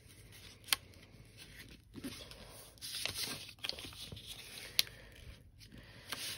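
A square of scrapbook paper being folded by hand, its corners brought to the centre and the creases pressed flat with the fingers: soft rustling and scraping of paper, with a couple of sharp clicks.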